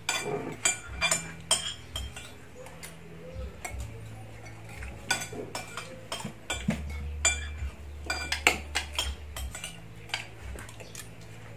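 Metal spoons clinking and scraping against plates as two people eat, a scattering of short, irregular clicks.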